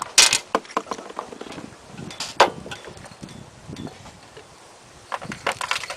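Irregular clicks and knocks of small metal parts being handled as the carburetor bowl is taken off a lawnmower carburetor.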